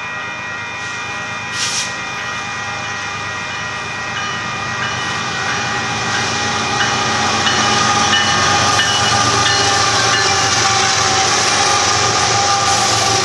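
Freight locomotive horn held in a long chord of several tones as the train nears the grade crossing, growing louder as the locomotives arrive. Diesel engine and wheel rumble underneath.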